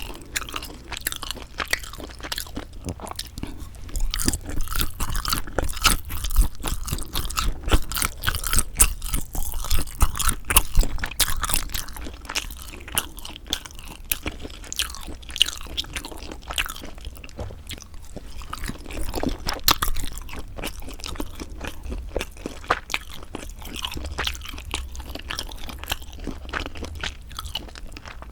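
Close-miked chewing and biting of sundae, Korean blood sausage: a continuous run of small wet mouth clicks, smacks and crunches. It is louder and busier from about four to twelve seconds in.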